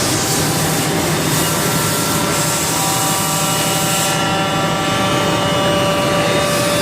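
Haas VF-4SS vertical machining center with an axis traversing under servo power: a steady whine of several tones from the servo motor and ballscrew over constant machine and shop noise.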